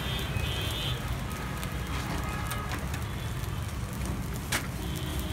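Steady low roar of a gas stove burner with scattered light clicks and clatter of utensils, and one sharper clack near the end.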